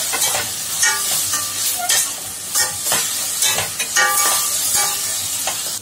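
Chopped onion, carrot, capsicum and tomato sizzling in hot oil in a stainless steel pan on high flame, stirred with a perforated metal spoon that scrapes and knocks against the pan every half second to second.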